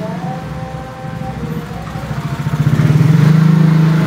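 A motorcycle engine running with a fast, even pulse, growing louder in the second half.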